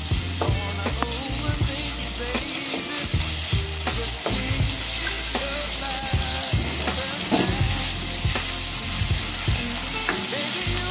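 Chopped onions and ginger-garlic paste sizzling in hot mustard oil in a metal kadai, stirred steadily with a wooden spatula that scrapes and taps against the pan.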